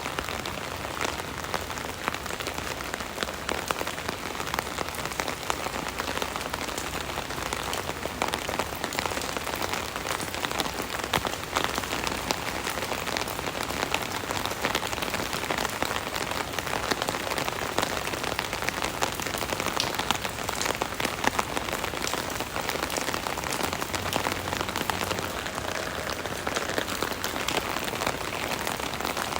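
Steady rain drumming on an umbrella canopy overhead: a dense patter of many small drop impacts.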